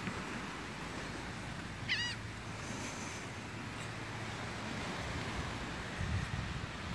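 Steady hiss of light surf and breeze along the shore, with one short, high, mewing seabird call about two seconds in.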